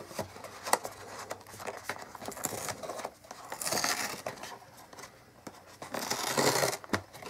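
Cardboard tablet box being worked open by hand: small clicks and scratches, then two scratchy tearing sounds, one about three and a half seconds in and a louder one about six seconds in.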